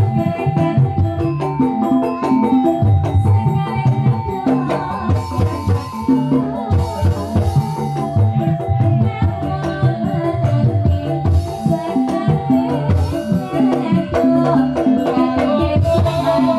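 Live Banyumas lengger dance music: kendang hand drums beat a busy rhythm under an electronic keyboard melody, with a cymbal-like hiss washing in now and then.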